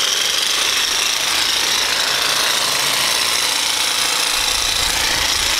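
Jigsaw percussive massage gun running, a rapid, steady hammering buzz as it works over the quadriceps. About four seconds in the sound turns deeper and heavier.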